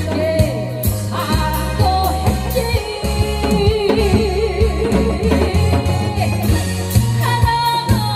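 A woman singing live with a lot of vibrato over a backing track with a steady drum kit and bass beat.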